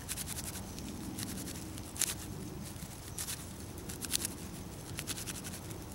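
Flint struck against a steel striker over a tinder bundle: a series of short, sharp, scratchy strikes, the strongest about two, three and four seconds in.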